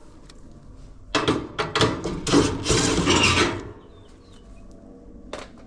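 Sheet metal scraping and rasping in a run of strokes for about two and a half seconds as a part, likely the heater housing, is worked out of a Whirlpool Duet dryer, then quieter handling and a single sharp click near the end.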